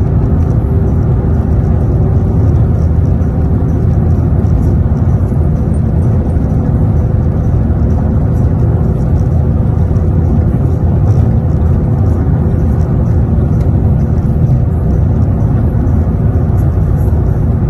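Ford Mustang cruising at steady highway speed, heard from inside the cabin: steady low engine and road noise with no change in pace.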